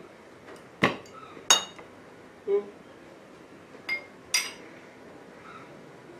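Four sharp clinks of hard objects knocking together, each ringing briefly, spaced irregularly over a few seconds.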